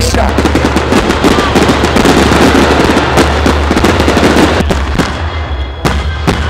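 Fireworks going off overhead: aerial shells bursting with dense crackling and many sharp bangs.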